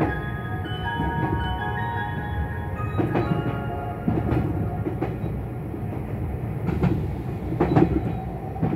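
The last notes of a limited express train's onboard chime melody die away over the first couple of seconds. After that comes the steady running rumble inside the passenger car of a JR West 273 series Yakumo, with irregular sharp knocks from the track.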